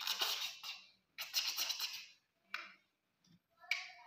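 Two scratchy rustling bursts, then a single click, with a brief pitched sound near the end.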